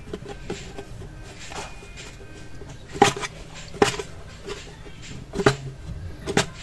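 Hands handling a stiff cardboard box, with scuffs of fingers on the card and a few sharp taps and clicks as its sleeve is worked loose, the clearest about three, four, five and a half and six seconds in.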